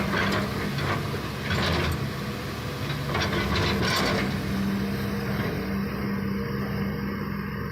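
Excavator's diesel engine running at a steady pitch, with a few brief harsher bursts of noise over it.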